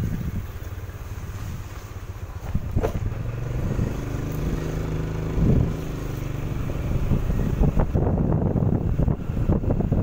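A motorcycle's engine running steadily as it rides along a road, with wind noise on the microphone.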